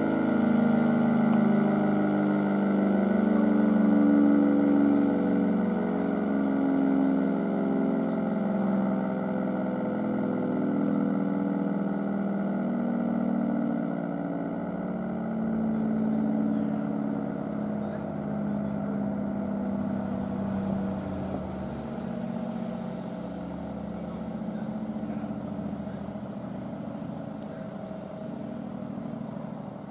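ACA Superbanshee siren winding down after its Hi-Lo test: several tones sliding slowly lower together while fading away.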